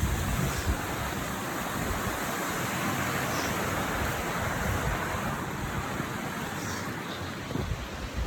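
Steady rush of flowing water, with wind buffeting the microphone in low rumbles.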